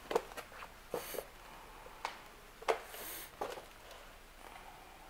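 Movement noise in a small room: about half a dozen light, irregular knocks and a couple of brief rustles, as from footsteps and handling of a handheld camera.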